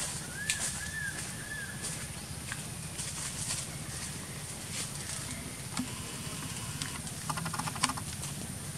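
Outdoor treetop ambience with a low steady hum and scattered clicks and rustles. Three short rising-and-falling chirp-like animal calls come in the first two seconds, and a rapid buzzy, pulsing call comes about seven seconds in.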